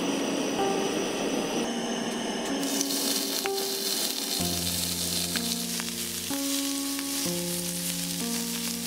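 Thin slices of marbled beef sizzling on a hot steel griddle plate, the sizzle growing stronger about two and a half seconds in as the meat goes down. Background music with sustained notes plays over it.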